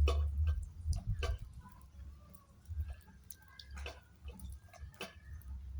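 Rain dripping: scattered single drops ticking onto a hard surface at irregular intervals, with a low rumble in the first second.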